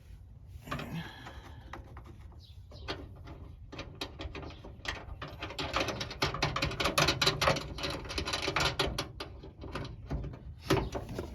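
Hand ratchet wrench clicking rapidly, in runs, as a 13 mm nut is turned to fasten a hood lift support.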